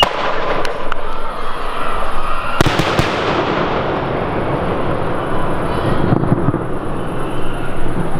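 Aerial display firework shells bursting overhead: a sharp bang at the start, a cluster of bangs about two and a half to three seconds in, and continuous crackling between them.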